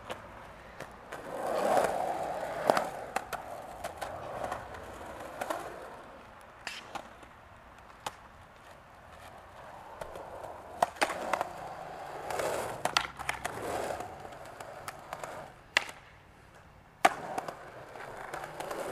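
Skateboard wheels rolling over concrete, swelling and fading twice as the board passes, with sharp clacks of the board striking the ground several times.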